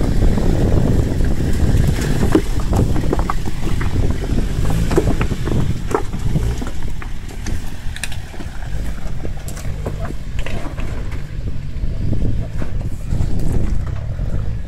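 Toyota Hilux pickup engine running at low revs as the truck crawls over loose rock, with stones clicking and knocking under the tyres. Wind rumbles on the microphone throughout.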